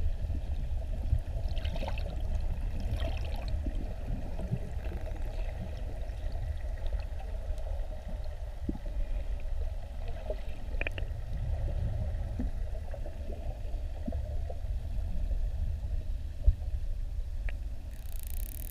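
Underwater sound through a camera housing: a steady low rumble of moving water with a few faint scattered clicks, and a burst of hiss near the end.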